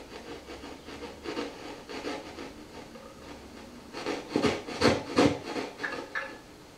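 A magnetoelectric guitar pickup, amplified through a guitar amplifier, sensing a permanent magnet moved toward and away from it with the strings not played: an irregular scratchy rubbing noise, louder about four to five seconds in.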